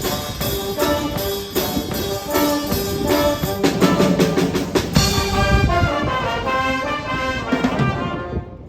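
Music led by brass instruments with a steady beat, fading out near the end.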